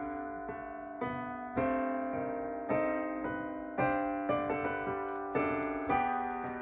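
Electronic keyboard with a piano sound, played through a direct line: chords struck about once a second, each ringing and fading before the next, with a few quicker melody notes between them.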